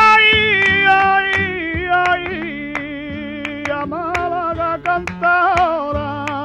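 Flamenco tangos de Málaga from a 1977 studio recording: a male cantaor holds long, wavering melismatic notes that step downward in pitch, over flamenco guitar plucks and strums.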